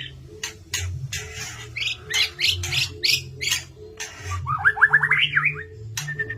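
White-rumped shama (murai batu) singing a varied, vigorous song of sharp clicks, a quick rising run of notes and a level whistled note near the end, over background music with a steady low beat.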